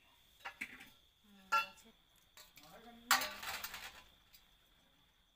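Small fish being washed by hand in a stainless steel bowl: a few metallic clinks of the bowl, then a louder splash of water about three seconds in. A thin steady high insect trill runs behind.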